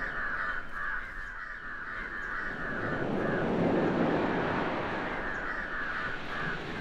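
Crows cawing in two rapid runs of short, harsh calls, one at the start and one near the end, over a steady wash of surf that swells in the middle.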